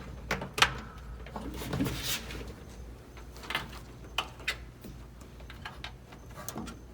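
Wiring harness being handled and pushed through a grommet hole in a car's fender: scattered light clicks and rustles, the sharpest about half a second in.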